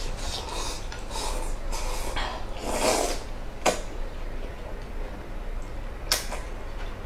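Spicy stir-fried thick rice noodles being slurped and chewed: several slurps, the loudest about three seconds in, then two sharp clicks.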